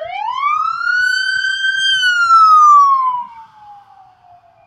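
Police car siren sounding one slow wail: the pitch climbs over the first second, holds, then slides steadily down and fades.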